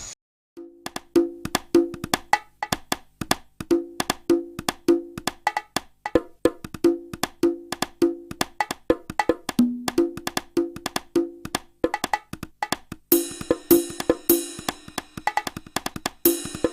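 Percussive background music: a fast, even rhythm of sharp clicks over a short repeating low melodic figure. A brighter, hissy percussion layer joins about thirteen seconds in.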